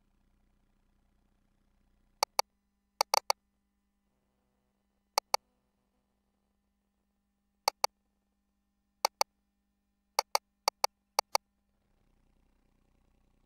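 Sharp clicks of ultrasound console controls as the sonographer places measurement calipers to measure the cervix. The clicks come mostly in pairs, like a press and a release, about eight times over some nine seconds, with a quick cluster of four about three seconds in.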